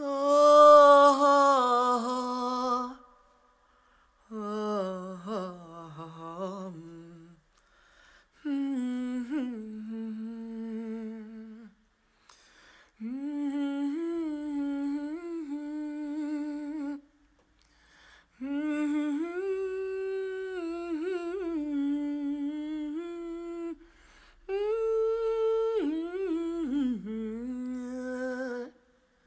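A single voice humming a slow, wavering melody with no accompaniment, in six phrases of two to five seconds with short pauses between.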